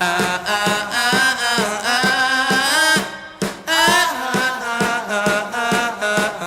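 Music: a song with a wavering, ornamented sung melody over a steady drum beat.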